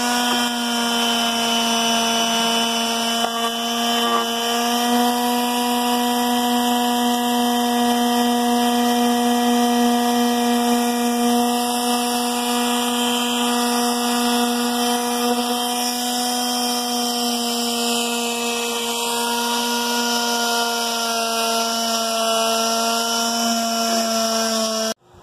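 DeWalt quarter-sheet palm sander running with 150-grit paper on white-painted cedar planks, smoothing out the scratches left by a 40-grit pass. It is a steady hum of constant pitch that cuts off abruptly right at the end.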